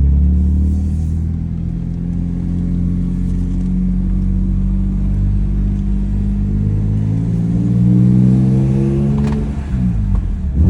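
Supercharged BMW M3 engine pulling under acceleration, its note climbing steadily in pitch for several seconds. Near the end the revs fall away and then start climbing again.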